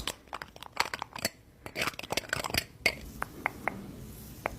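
A rapid, irregular series of small clicks and taps.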